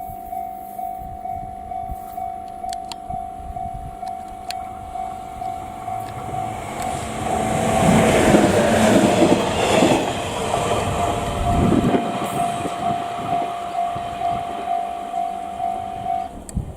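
Japanese level-crossing warning bell dinging steadily, about two and a half strikes a second, while a JR 719 series electric train passes with a rumble and wheel clatter, loudest about eight to ten seconds in. The crossing bell stops just before the end.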